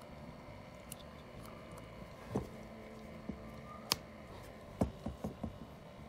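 Faint handling clicks and light knocks as a USB-C cable plug is pushed into a tablet's port, with one sharper click about four seconds in and a quick run of small knocks near the end, over quiet room tone.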